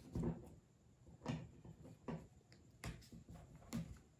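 Light taps and soft rustles of cotton fabric being handled and pinned on a wooden surface, about five short sounds spaced under a second apart.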